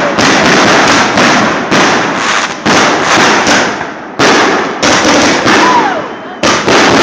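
Consumer fireworks going off in quick succession, a loud bang about every half second to second, each followed by a short crackle. A falling whistle sounds near the end.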